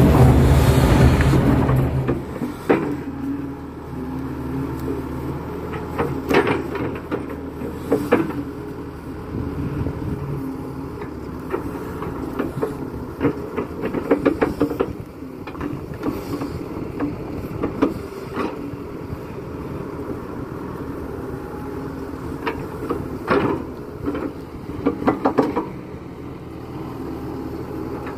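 Kato crawler excavator's diesel engine running, loud and low for the first two seconds, then quieter. Irregular knocks and clanks follow as the bucket digs and dumps mud to rebuild a pond bank.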